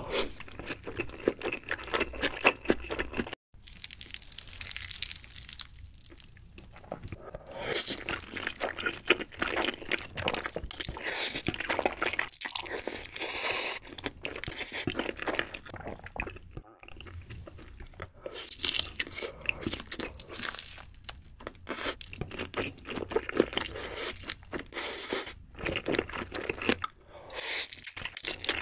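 Close-miked eating sounds: spicy instant noodles being slurped and chewed.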